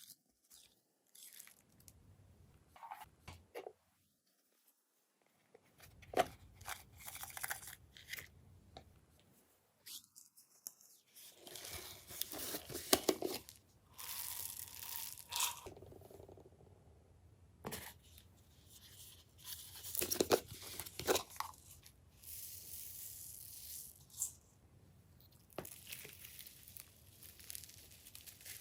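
Glossy slime being pressed, stretched and folded by hand, giving irregular sticky clicks and crackles with a couple of short pauses.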